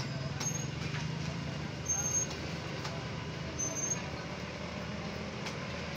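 Busy street background of traffic and distant voices, with a steady low hum. Three short, high-pitched chirps stand out, about half a second, two seconds and three and a half seconds in.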